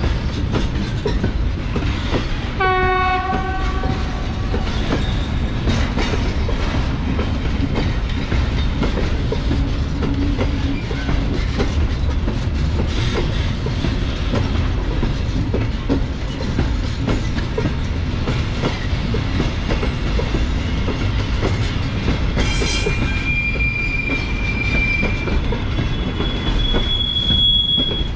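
Intermodal container wagons rolling past at steady speed, a continuous rumble with rail-joint clatter. About three seconds in there is a brief horn-like tone of about a second. In the last few seconds there are steady high-pitched wheel squeals, one lasting a couple of seconds and a shorter one near the end.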